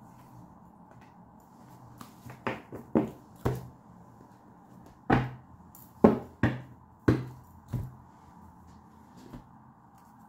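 Tarot cards and the deck being knocked and set down on a tabletop: a series of about ten sharp knocks, starting about two seconds in and ending near eight seconds.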